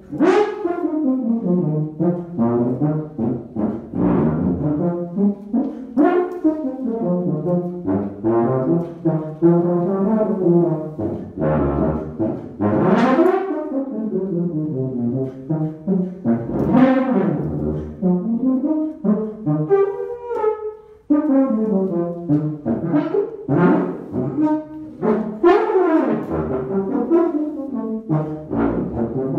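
Unaccompanied tuba improvising: fast runs of notes sweeping up and down, with a brief pause about two-thirds of the way through.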